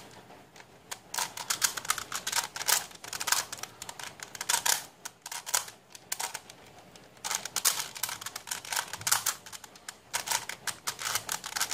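Plastic face-turning octahedron puzzle being turned by hand: quick runs of clicking and clattering as its faces rotate, in two bursts of turns with a pause of about two seconds in the middle.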